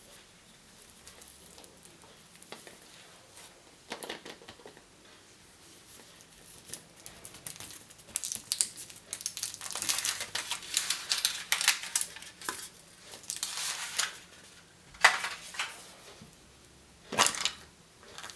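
Candy and surprise-egg wrappers being crinkled and torn open by hand, in irregular crackles. The crackling thickens into a dense run midway, then two sharp snaps follow near the end.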